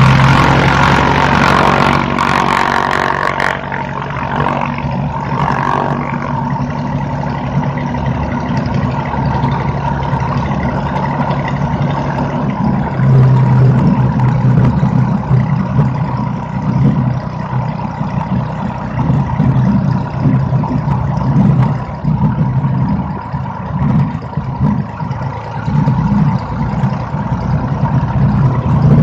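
Single-engine light airplane's piston engine and propeller running while taxiing, with wind buffeting the wing-mounted microphone. Louder and fuller for the first few seconds, then settling to a steady taxi drone.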